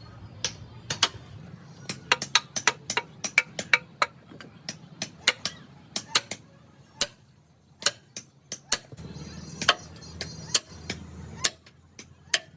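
Light hammer taps in quick, uneven succession, a few a second, sharp and short, with a brief pause about six seconds in.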